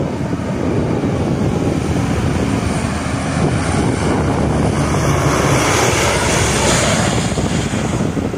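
Lockheed C-130 Hercules' four turboprop engines passing low overhead on landing approach: a loud, steady propeller drone that grows louder and brighter to a peak about six seconds in, then begins to fade.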